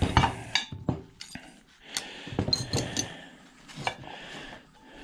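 Small metal scrap parts from a dismantled ice maker clinking and knocking together as they are handled. There are several sharp clinks, a few of them ringing briefly.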